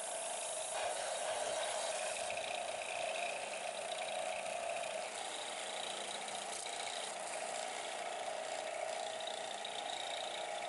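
A small power tool running steadily, a motor note with a grinding hiss, cutting the brass-tube handle pins flush with the knife's handle.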